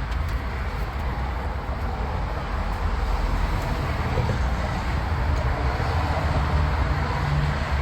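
A vehicle's steady low rumble, with no distinct events.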